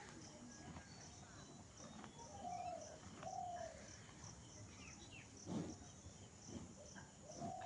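Faint rural ambience: insects chirring steadily, and a bird giving short call notes, two about a second apart and a third near the end. A dull knock comes about five and a half seconds in.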